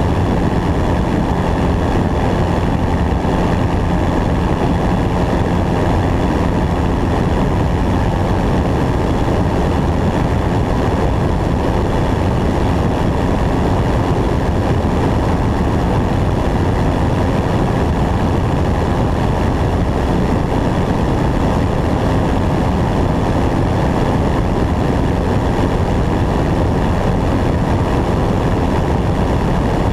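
Single-engine light propeller airplane in flight, its engine and propeller running at a steady, unchanging drone heard from a camera mounted on the wing.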